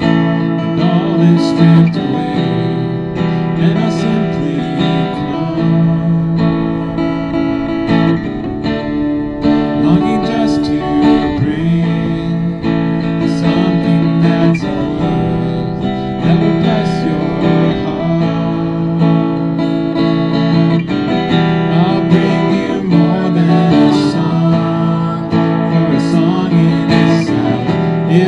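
Live band music led by a strummed acoustic guitar playing sustained chords, with regular drum hits.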